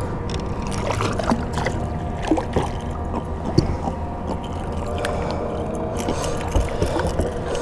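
A hooked jack splashing at the side of a kayak, with scattered small knocks and clicks of rod, reel and line against the hull, over a steady low hum.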